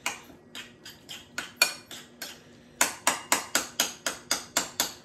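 A utensil clinking against a bowl while stirring a mixture: scattered clinks at first, then a quicker run of about four or five strikes a second in the second half.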